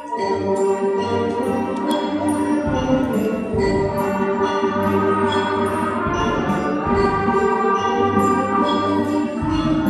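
A school band playing a loud ensemble piece: sustained chords, with low booming hits coming about every three seconds.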